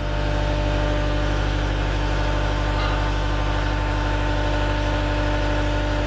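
Diesel engine of a CAT 279D3 compact track loader running steadily with a constant hum.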